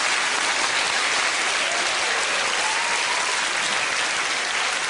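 Large theatre audience applauding: dense, steady clapping that holds at an even level throughout.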